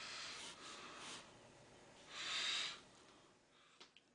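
Two soft breaths close to the microphone: a longer one at the start and a louder one a little past two seconds in. A couple of faint clicks come near the end.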